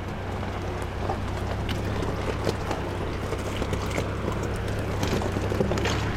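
SUV driving slowly over a loose rock and gravel track, heard from inside the cabin: a steady low engine hum with scattered crunches and knocks of the tyres and body on the stones.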